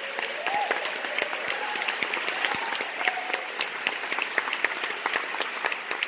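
Audience applauding, a dense steady patter of handclaps.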